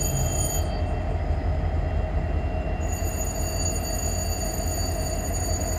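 Norfolk Southern diesel locomotives rolling slowly past at close range, their engines running with a steady low rumble and a steady whine above it.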